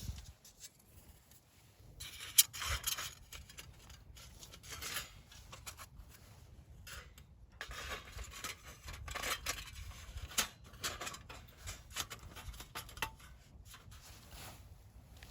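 Small wood fire crackling: irregular pops and snaps, the sharpest about two and a half seconds in, after a quiet first two seconds.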